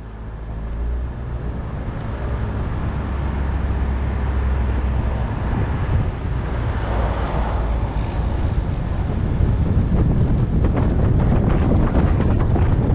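A car driving: a steady low rumble of engine and tyres with wind noise on the microphone. It grows louder over the first few seconds and turns gustier, with crackling buffets, in the second half.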